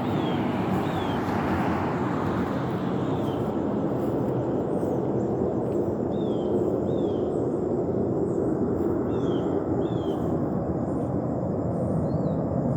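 A steady, loud roar like rushing air, coming from the sky with no visible source. In the first couple of seconds the hiss of a passing vehicle fades out. A bird chirps now and then with short falling notes.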